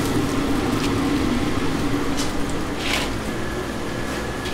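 Seafood market background noise: a steady din with a low hum that fades out about three seconds in, and two short clatters near the middle.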